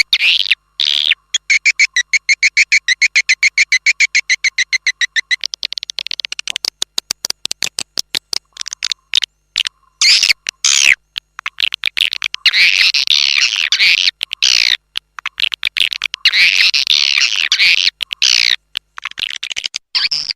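Swiftlet lure-call recording: rapid trains of high chirps, an even fast trill at first, then denser twittering bursts with brief gaps between them. It is the kind of call played to draw swiftlets into a bird-nest house.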